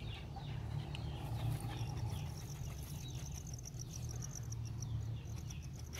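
Insect chirping in fast, even high-pitched pulses, starting a little under two seconds in, over a steady low hum.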